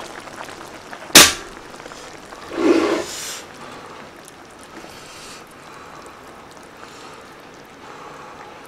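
A portable gas burner's knob turned off with one sharp, loud click about a second in, cutting the flame under the boiling stew. A short breathy puff follows, then only faint low noise.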